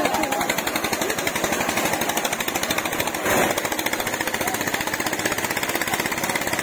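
Diesel engines of two small tractors, a Mahindra 265 DI and an Eicher 242, running hard under load as they pull against each other on a chain: a rapid, even knocking. The loudness rises briefly a little after three seconds in.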